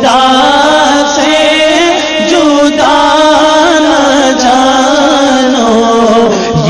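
Urdu naat sung by a male voice, holding long wavering melismatic lines with no clear words.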